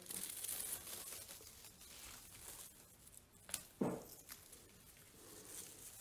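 Dry raffia strands being pinched and pulled apart by hand: a faint rustling and tearing, a little louder in the first second and quieter after.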